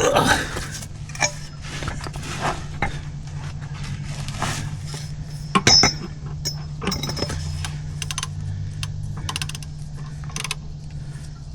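Metal tools clinking and clanking, with sharp clicks, as a socket wrench is worked on a tight oil drain plug under a tractor; the loudest clank comes near the start and another about six seconds in, over a steady low hum.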